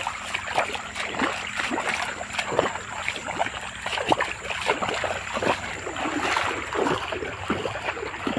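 Footsteps and rustling of brush and plants while walking, an irregular run of crunches and crackles.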